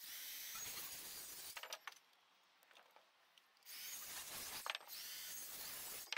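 Cordless circular saw cutting off timber rafter feet: two spells of steady cutting noise, the first about a second and a half long, the second starting a little after halfway and lasting about two and a half seconds, with a near-silent gap between.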